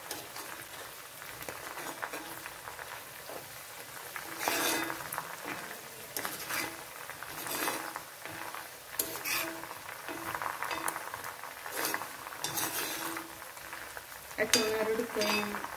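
Henna leaves sizzling in hot coconut oil in an iron kadai, frying down until they darken and crisp. A spatula stirs and scrapes through them, giving a scraping stroke every second or two over the steady sizzle.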